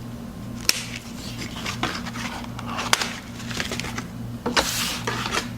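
Cardboard toy box with a plastic window being handled and turned over: a few sharp clicks and short rustles of card and plastic, over a steady low hum.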